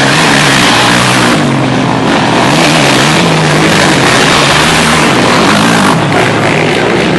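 Racing quad bikes' engines revving hard as they pass close one after another, the pitch rising and falling with the throttle.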